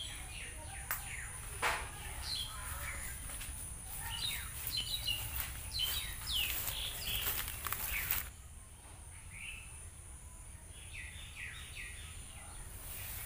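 Birds chirping and calling in short, falling notes over a steady low outdoor rumble, with a few sharp clicks in the first eight seconds. The background changes abruptly about eight seconds in.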